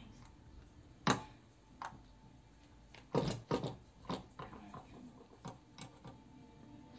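Small sharp clicks and taps of a soldering iron and wires knocking against a plastic battery box while wires are soldered onto its terminals. The sharpest click comes about a second in, and a cluster of taps follows around three to four seconds in.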